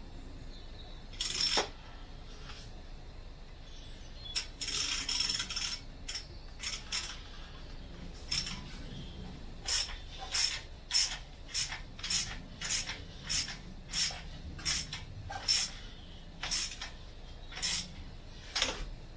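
Hand tools working the manifold nuts on an engine block: sharp metallic clicks and a short clatter, then a regular run of single clicks, about one to two a second, typical of a socket ratchet being swung back and forth.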